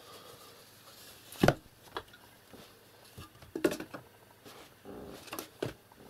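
A few separate sharp knocks and clicks from objects being handled and moved, the loudest about one and a half seconds in, with a small cluster near the middle and more near the end.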